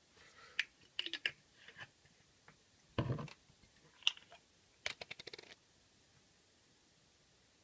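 Small handling sounds of syrup bottles at the bowl: scattered light clicks, a heavier thump about three seconds in, and a quick run of clicks near five seconds in.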